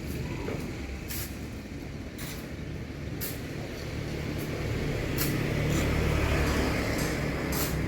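A heavy vehicle's engine running steadily, growing louder in the second half, with a few sharp clinks scattered over it.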